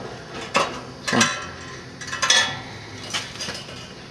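Steel pieces clinking and clanking against each other in a metal workshop: about five short sharp metallic strikes in four seconds, each with a brief ring.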